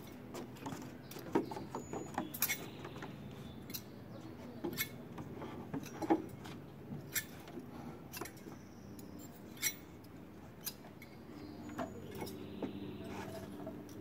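Scattered light clicks and knocks from people moving on a wooden deck and handling a cardboard guillotine prop, over a faint low hum.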